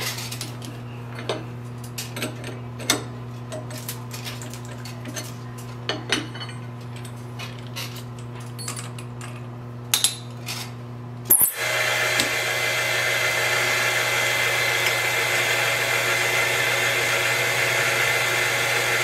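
Acra tool and cutter grinder humming steadily, with scattered light metallic clicks and taps from tools being handled. About eleven seconds in there is a sharp clack, and the machine then runs louder with a steady high whine.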